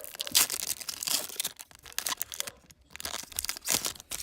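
The wrapper of a 2018 Topps WWE trading card pack being torn open and crinkled by hand, in irregular crackling bursts with a short pause just after the middle.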